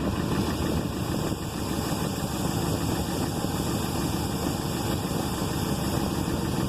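2002 Ford Expedition's V8 engine idling steadily, with the air conditioning set to max.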